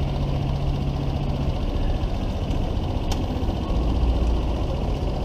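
An engine idling steadily. Its low hum changes about a second and a half in, and there is a single sharp click about three seconds in.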